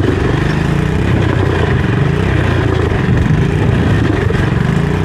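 ATV engine running while riding a trail, its pitch rising and falling with the throttle.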